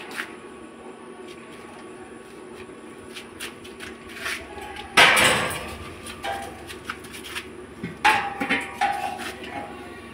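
A steel LPG gas cylinder knocking and scraping against a steel cage and its grated metal floor as it is lifted out and set back in. There is a loud scrape about halfway through, then a cluster of ringing metal clanks.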